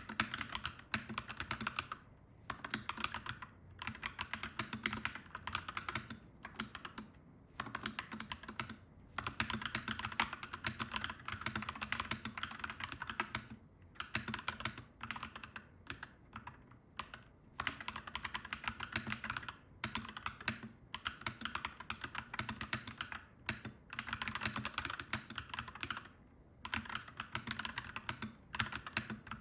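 Typing on a clacky mechanical keyboard: fast runs of key clacks lasting a few seconds each, broken by short pauses.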